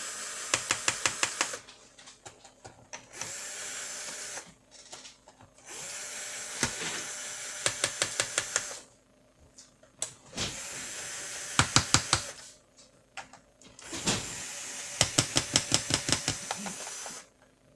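Electric screwdriver backing out the screws from a laptop's bottom case, run five times in short spurts of one to three seconds, with a rapid clicking of about five clicks a second during each run.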